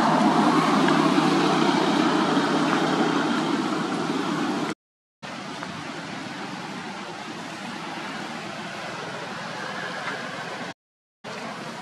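Steady rushing background noise with no distinct events, louder for the first four and a half seconds, and broken twice by brief cuts to silence.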